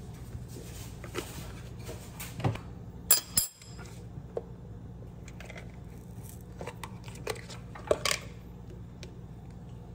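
Scattered light clicks and knocks of containers handled on a kitchen counter: milk poured over iced coffee in a glass mug, then a paperboard ice cream pint being opened. A steady low hum runs underneath, and the sound drops out for a moment about three and a half seconds in.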